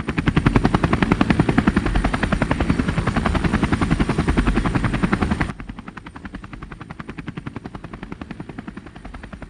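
Helicopter rotor sound, a fast, even chopping that drops abruptly to a quieter chop a little over halfway through and keeps going.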